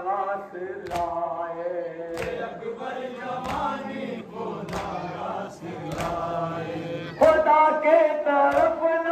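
Men's voices chanting a nauha together, marked by sharp chest-beating (matam) strikes about once every second and a quarter. The chanting gets louder about seven seconds in.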